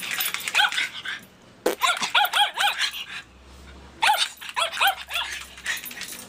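A dog barking in three quick runs of short, high barks, each bark rising and falling in pitch.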